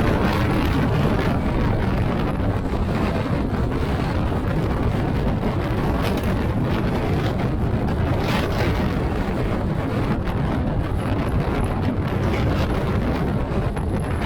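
Steady wind buffeting the microphone over a low, even rumble, with no clear engine note.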